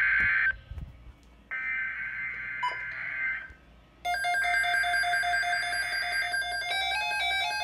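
Emergency Alert System SAME header data bursts: harsh, buzzing digital screeches about two seconds long with short gaps between them. The first ends half a second in, the second follows a second later, and the third, about four seconds in, is joined by electronic music of beeping stepped notes.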